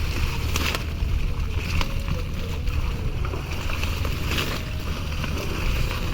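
Water splashing and sloshing in brief washes, over a steady low wind rumble on the microphone.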